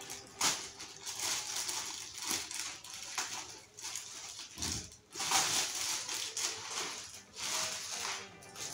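Clear plastic packaging bag crinkling and rustling in irregular bursts as it is torn open by hand and a fabric backpack is pulled out of it.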